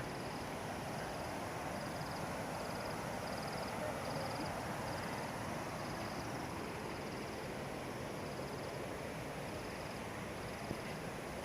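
A steady rushing noise, with an insect chirping in short, high-pitched pulses repeating evenly a little under twice a second.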